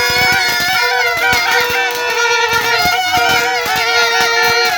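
Music: several held tones sounding together and wavering in pitch, with quick short pops underneath.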